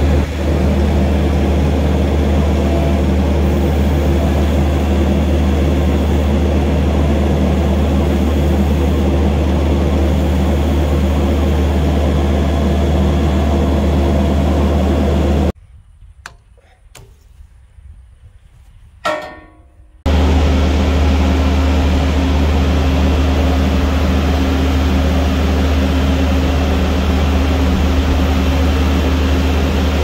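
Kubota compact track loader's diesel engine running steadily with a strong low hum. About fifteen seconds in it cuts out for four or five seconds, leaving a few faint clicks and a short metallic sound while hydraulic hoses are being coupled, then the engine sound returns.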